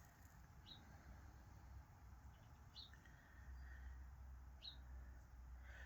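A bird's faint, short, high chirp, repeated three times about two seconds apart, over a low hum.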